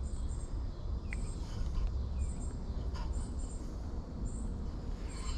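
Insects chirping outdoors: short, high-pitched double chirps repeating about once a second, over a steady low rumble.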